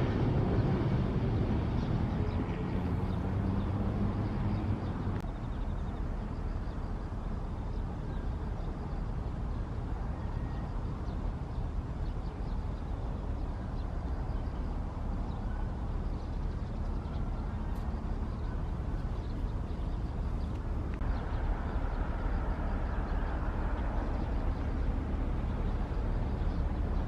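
Steady low outdoor rumble, with a pitched engine hum in the first few seconds that then fades into the background.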